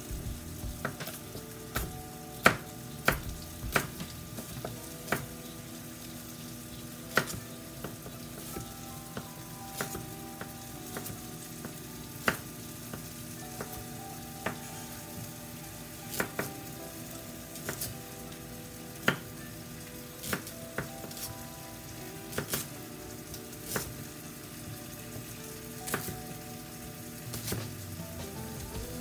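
Kitchen knife cutting onion and carrot on a wooden cutting board, sharp knocks at irregular intervals, over the steady sizzle of a Cornish hen frying in a skillet.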